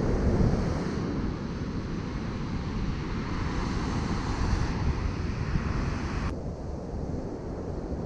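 Strong open-sea surf breaking on the beach, mixed with wind buffeting the microphone in a steady, heavy rumble. About six seconds in, the higher hiss drops away suddenly.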